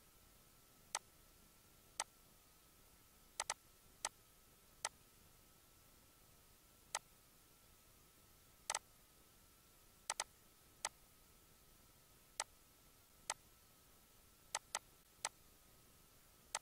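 Computer mouse button clicks, sharp and separate, about one a second at irregular intervals and sometimes in quick pairs, as curve points are placed in a CAD program.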